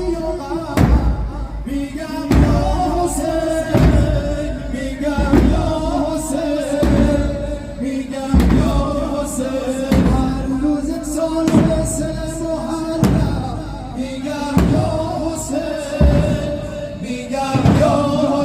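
Ashura mourning-procession music: a heavy drum beat about once every second and a half under long held tones.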